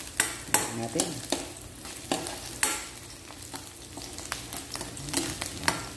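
Metal spatula scraping and clacking against a wok in irregular strokes as sliced garlic and onions are stirred. Oil sizzles steadily underneath.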